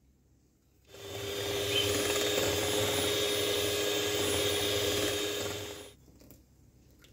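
NASA electric hand mixer switched on about a second in and running steadily for about five seconds, its beaters whirring through cake batter in a glass bowl, then switched off.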